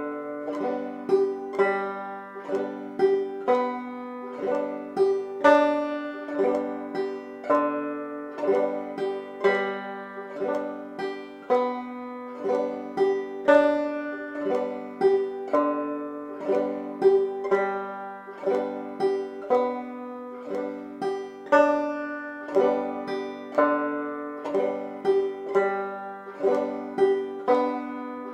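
Clawhammer banjo played on open strings with no chord shapes: the basic frailing strum worked across strings 4, 3, 2 and 1 in an even, repeating rhythm at a slow practice tempo of 60 beats a minute.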